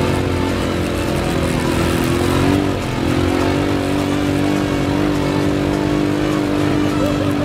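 ATV engine running steadily under throttle on a trail ride. About three seconds in the engine note dips briefly, then holds steady at a slightly lower pitch.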